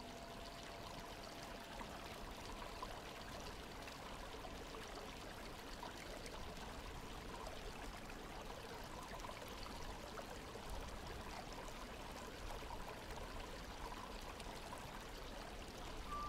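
Faint, steady rushing of a waterfall.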